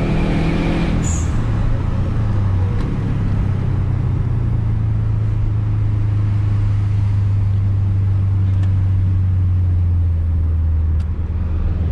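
Subaru car heard from inside the cabin while driving: a steady, loud, low engine and road drone whose pitch sinks slowly as the car eases off, dipping a little in loudness near the end.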